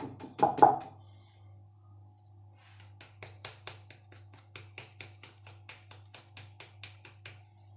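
Two knocks, then a run of quick, even taps, about four a second, of a kitchen utensil against a strainer while blended watermelon is strained for its juice.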